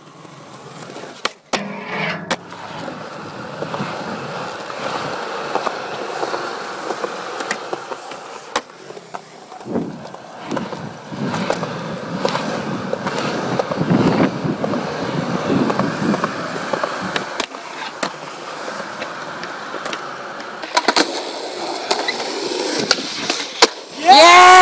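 Skateboard wheels rolling over concrete, with sharp clacks of the board striking and landing at intervals. Near the end a loud voice cries out.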